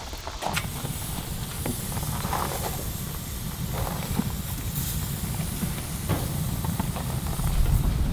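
Steady hiss and low rumble of a hot grill, with a few light clicks and knocks.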